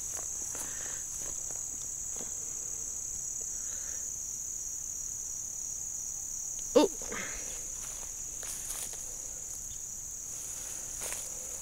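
A steady, high-pitched chorus of insects singing. Faint rustling comes from the vegetation, and one brief sharp sound about seven seconds in is the loudest thing heard.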